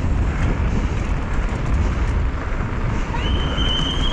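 Mountain bike rolling fast over cobblestones: a dense, steady rattle and rumble from the tyres and bike, with wind on the helmet-mounted camera. A high steady tone begins about three seconds in and is held to the end.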